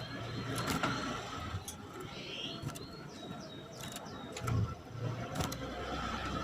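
Female canary giving a few faint, short chirping calls, with several sharp clicks and a low rumble in the background.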